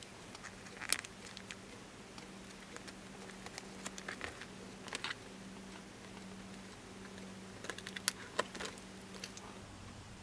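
Quiet, scattered clicks and taps of alphabet letter stickers being peeled from their sheet and pressed onto a paper journal page, over a faint steady low hum.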